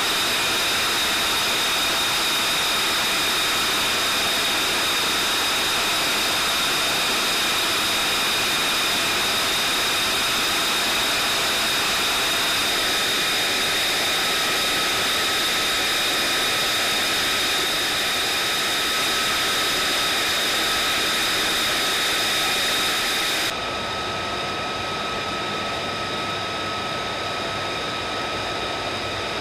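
F-35B's F135 turbofan running at idle: a steady high jet whine with several held tones over a continuous rush of noise. About three-quarters of the way through, the sound cuts to a slightly quieter, duller take of the same whine.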